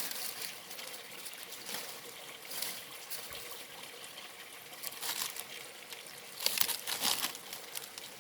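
Stream water trickling steadily, with a few short, sharper sounds over the top about two, five and seven seconds in.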